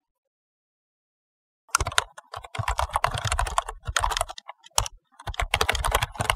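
Rapid keyboard typing clicks. Silent for the first second and a half or so, then two runs of fast key clicks with a short gap between them, a typing sound effect.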